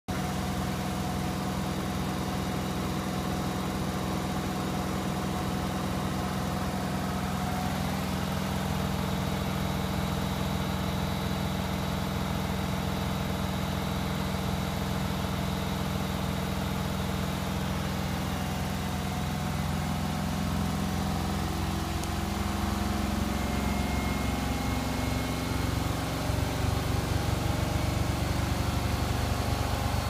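Hoover 9 kg front-loading washing machine running a spin cycle: a steady motor hum and low drone from the spinning drum. About two-thirds of the way through the pitch shifts and it grows louder as the spin changes speed.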